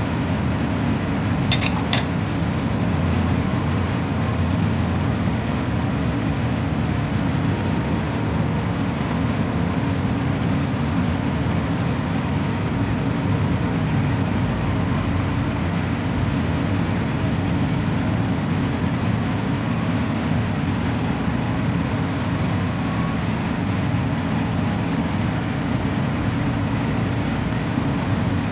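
Steady low mechanical rumble, with two light clicks about two seconds in.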